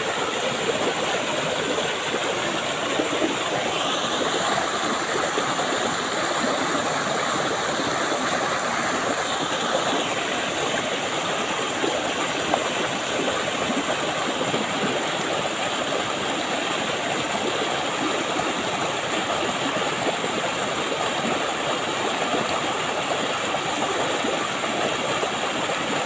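Steady rush of a river cascading over rocks in a small waterfall, an even, unbroken splashing roar of water.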